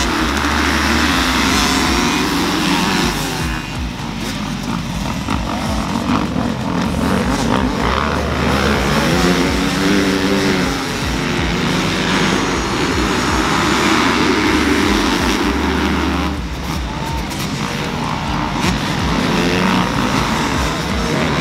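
A pack of motocross dirt bikes leaving the start line and racing on the track. Their engines rev hard, rising and falling in pitch as riders accelerate and shift.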